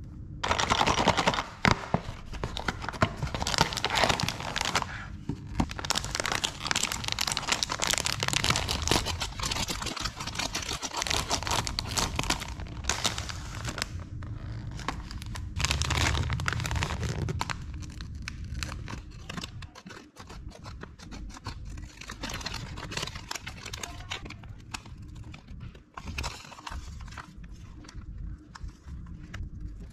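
Candy-kit packaging being handled and unwrapped: cellophane and plastic crinkling and rustling in dense stretches, with short pauses. Near the end a plastic packet is cut open with scissors.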